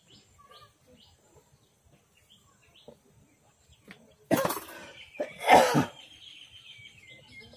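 A person coughing twice, about four and five seconds in, over faint bird chirps.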